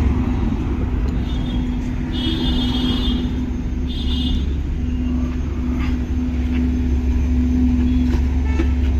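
Car engine running with a steady low rumble and hum. Between about one and four and a half seconds in, a high-pitched tone sounds briefly three times.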